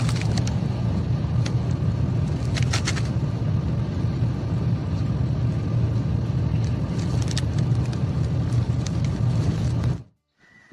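Steady car rumble of engine and road noise heard from inside a moving car, with a few faint clicks, cutting off suddenly near the end.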